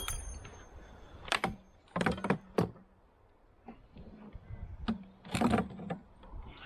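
A series of sharp clunks and knocks: one at the start, a quick run of four over a second or so, and a longer clunk with a low hum near the end.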